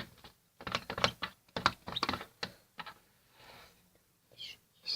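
Slime being stirred and handled in a container: a quick run of small, irregular clicks and taps for about two and a half seconds, then a few fainter ones.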